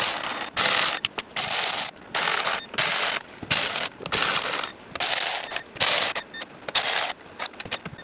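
Pneumatic air ratchet run in short bursts, about one a second, with a sharp air hiss, snugging the intake manifold bolts down lightly rather than torquing them.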